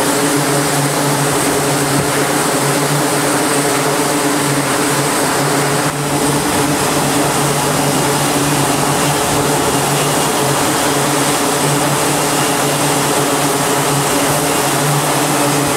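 F/A-18 fighter jet engines running on a carrier flight deck: a loud, steady jet rush with a constant low hum underneath.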